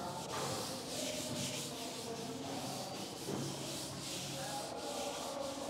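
A duster rubbing chalk off a chalkboard in repeated back-and-forth strokes, a soft scratchy swishing.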